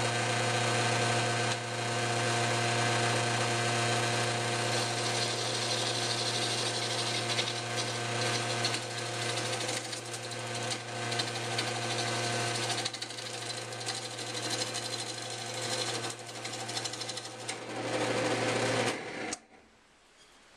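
Belt-driven wood lathe running at its slowest speed, about 875 RPM, with a log blank turning on it: a steady electric-motor hum with a rough noise over it, switched off shortly before the end. The spindle pulley, just retightened, is driving the wood again, but the blank is not holding firmly in its mounts.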